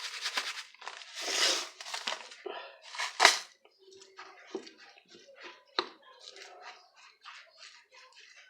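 A spoon stirring and scraping damp corn couscous flour in a bowl: rough scraping strokes over the first few seconds, the sharpest about three seconds in, then only light scattered clicks and taps.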